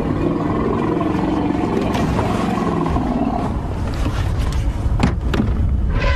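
An agitated elephant giving a loud roaring call lasting about three and a half seconds, over the low running of a safari vehicle's engine.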